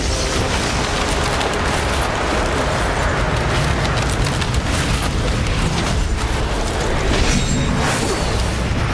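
Film sound effects of a blast: a continuous heavy rumble of booms with crackles and crashes mixed in, as a hall fills with smoke and dust.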